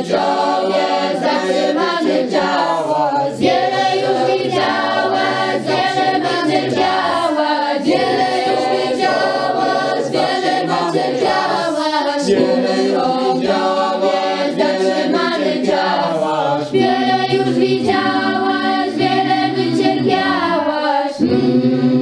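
Choir singing a cappella.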